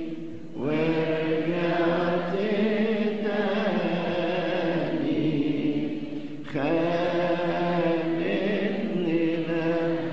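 A man chanting a slow Arabic Christian hymn in long, drawn-out notes, with the pitch wavering gently through each held note. New phrases begin about half a second in and again about six and a half seconds in.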